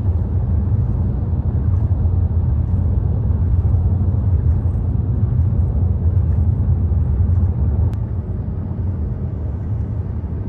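Steady low rumble of road and engine noise inside the cabin of a moving Toyota taxi, easing slightly about eight seconds in.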